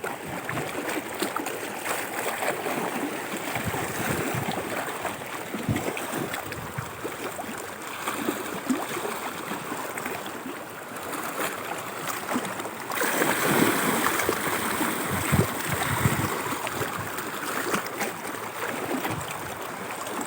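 Sea water washing and gurgling against shoreline rocks, a steady rushing that gets louder about two-thirds of the way through.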